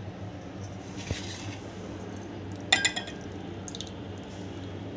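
Yogurt chutney being poured and scraped from a steel pan into a ceramic bowl: soft wet pouring sounds, a faint click about a second in, and one sharp metallic clink with a short ring a little past the middle.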